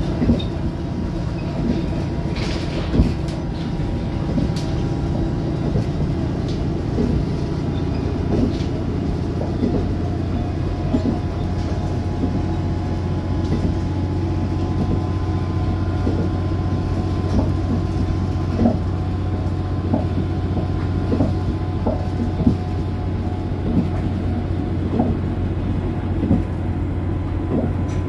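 Diesel railcar running along snow-covered track, heard from just behind the driver's cab: a steady low engine drone with scattered light clicks from the wheels on the rails. The drone grows stronger about nine seconds in.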